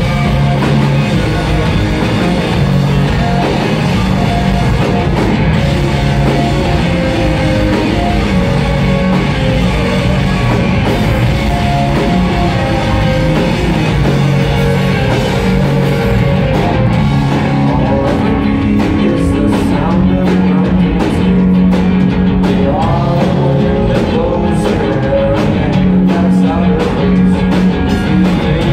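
Live rock band playing loud: distorted electric guitars, bass guitar and a drum kit.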